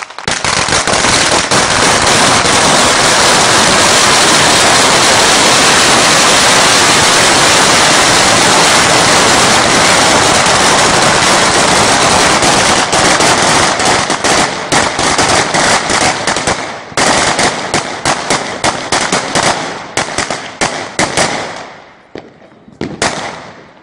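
A long string of firecrackers (a kolonija) going off: a dense, continuous rapid crackle of bangs like automatic gunfire for about fourteen seconds, then thinning into separate bangs that die out near the end.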